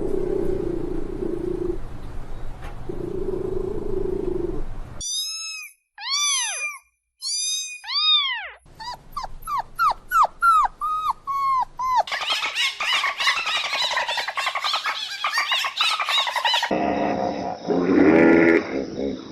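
A succession of different animal calls: a low rumbling stretch, then a few high arching squeals, then a rapid run of short falling whines, then a dense chorus of many overlapping calls, changing again near the end.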